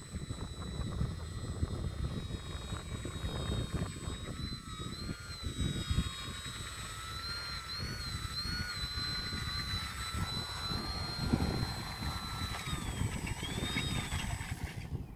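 Motor and propeller of a small 3D-printed RC autogyro whining, the pitch wavering up and down as the throttle changes, then falling and cutting out near the end as it comes down on the grass. Wind buffets the microphone throughout with a heavy low rumble.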